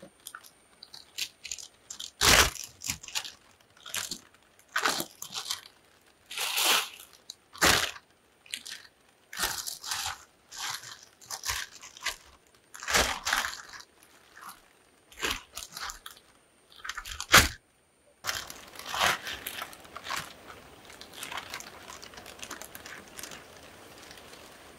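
Polythene rain-guard sheet crinkling and rustling in irregular bursts as it is pleated by hand and pressed onto the glue band on a rubber tree's bark. After a brief cut, about 18 s in, only a faint steady hiss with a few light rustles remains.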